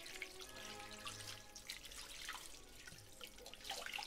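Tap water running over an octopus as it is rinsed in a sink, quiet, with soft background music under it.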